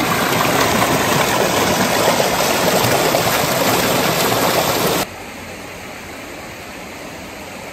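Creek water rushing and splashing over rock ledges, loud and close. About five seconds in it cuts abruptly to a quieter, steady flow.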